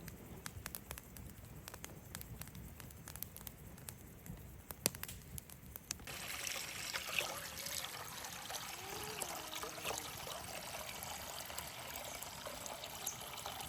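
Scattered light clicks, then from about six seconds in, water trickling steadily.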